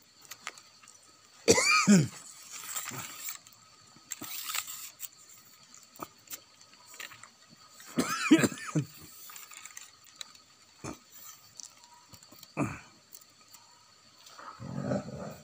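An animal gives two loud calls about six seconds apart, each sweeping steeply down in pitch, then a shorter falling cry and a rougher sound near the end.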